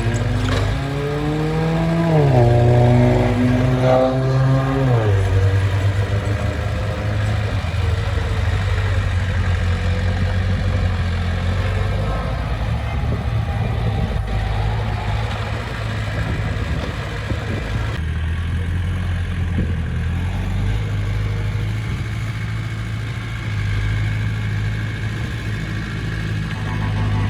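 Heavy-equipment diesel engine revving up twice in the first five seconds, then running steadily.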